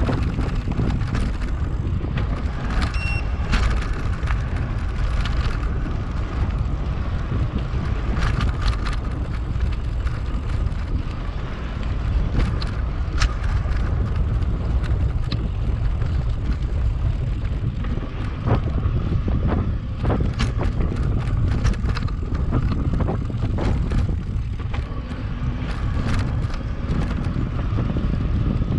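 Wind rumbling over the microphone while riding an electric mountain bike, with frequent clicks and rattles from the bike jolting over rough ground.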